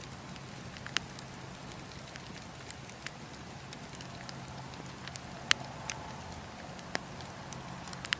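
Bonfire crackling, with sharp irregular pops over a steady background; the loudest pop comes about five and a half seconds in.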